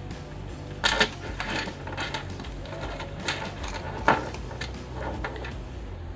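Hands handling a Boya BY-M1 lavalier microphone's battery housing and foam windscreen: a few sharp plastic clicks and knocks, loudest about a second in and about four seconds in, with lighter ticks and rustling, over a steady low hum.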